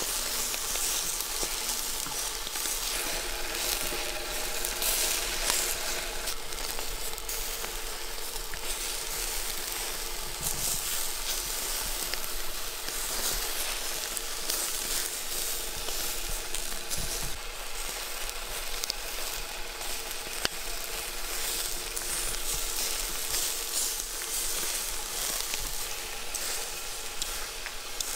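Skewered meat and vegetables (shashlik) sizzling steadily over hot charcoal on a grill, with scattered small pops.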